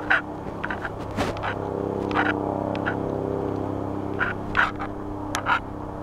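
A steady engine-like hum, with about half a dozen short, sharp clicks or snaps scattered through it.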